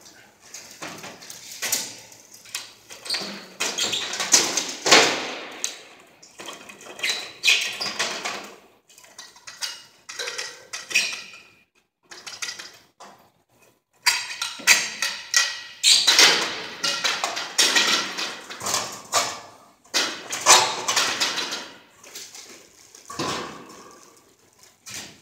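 Fluorescent ceiling light fixture being taken apart by hand: irregular clatter, knocks and rattles of sheet-metal and plastic parts and tubes, coming in bursts with short pauses.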